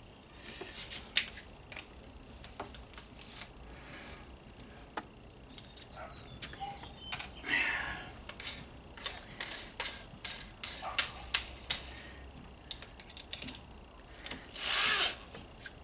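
Tools and small metal parts being handled: scattered light clicks and taps, with two brief rubbing or hissing noises, one about halfway through and one near the end.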